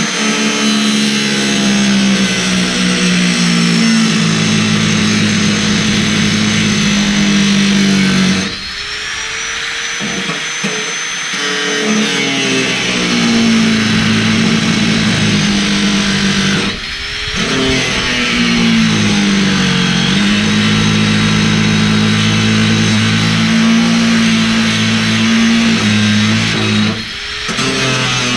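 Background guitar music over an angle grinder running and cutting bolts, stopping briefly three times and spinning back up.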